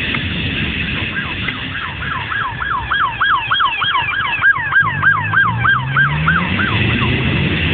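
Police siren on a fast yelp, about three or four rising-and-falling sweeps a second, over a steady hiss. In the last couple of seconds a motor climbs in pitch as it speeds up.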